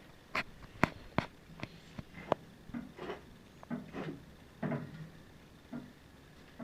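Irregular sharp metal clicks and knocks, about a dozen spread over several seconds, with a few duller clunks in the middle, from metal parts and tools being handled during work on a tractor's hydraulic unit and the engine hoist lifting it.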